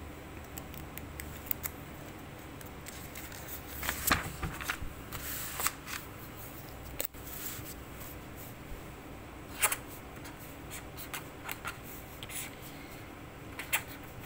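Paper being handled and shifted, with rustles about four seconds in, then a pen scratching on paper in short strokes as it writes.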